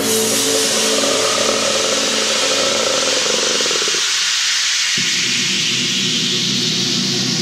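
A loud, steady hiss like static or rushing air cuts in suddenly. Under it the soundtrack music fades out about four seconds in, and about a second later a low drone comes in.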